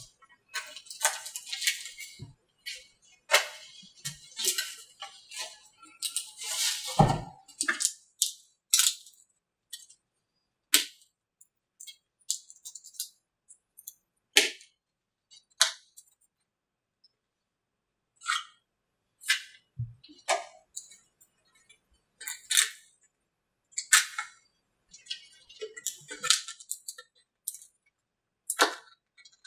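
Fiberglass mold being pried apart by hand: irregular sharp taps, clicks and short scrapes, with quiet gaps between, as wedges and a tool are worked into the seam to free the male mold from the female mold.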